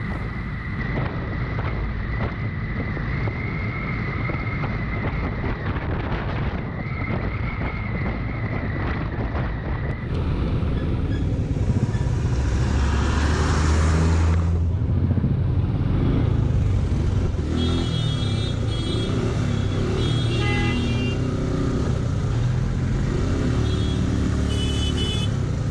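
A Suzuki Gixxer SF motorcycle riding in road traffic, with engine, road and wind noise and other vehicles around. A steady whine runs for the first ten seconds, then the sound changes abruptly to heavier traffic noise, with short high beeps like vehicle horns in the last third.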